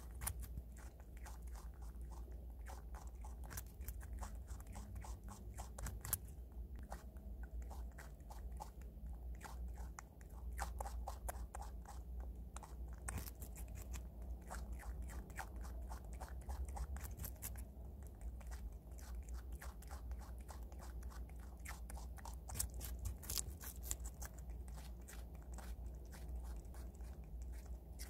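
Prairie dog biting and chewing a slice of raw white radish: a continuous run of small, crisp crunches, over a steady low hum.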